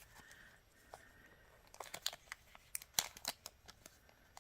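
Small plastic bead bag crinkling and rustling as it is handled and opened to get a pendant out, in a run of short crackles and clicks, busiest in the middle.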